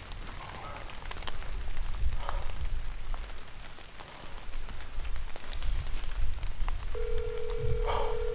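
Rain pattering, with scattered light ticks and a low rumble. About seven seconds in, a phone's ringback tone sounds, a steady hum-like tone lasting about two seconds, as a call to a friend rings through.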